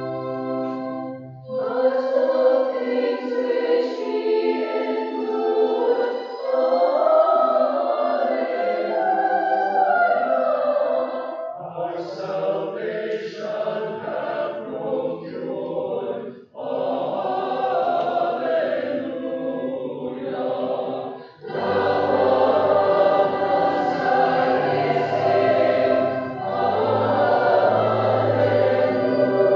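A church organ holds a chord, then about a second and a half in a choir begins singing a slow sacred piece in long phrases, with short breaths between them.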